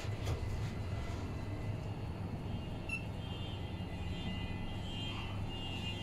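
Hitachi freight lift car travelling between floors, a steady low rumble throughout, with a faint high wavering whine in the second half.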